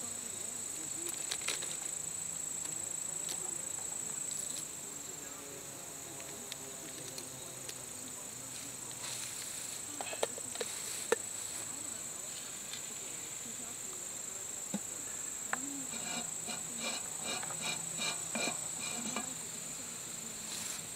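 A steady high-pitched insect chorus, with a few light clicks and knocks about halfway through and a pulsing rhythm near the end.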